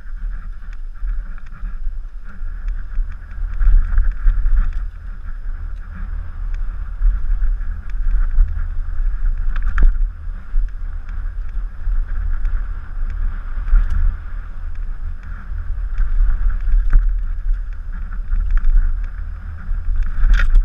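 Steady wind rumble on the microphone of a camera worn by a downhill mountain biker riding fast, with the rattle of the bike on the dirt trail and a few sharp knocks, one about halfway through and one near the end.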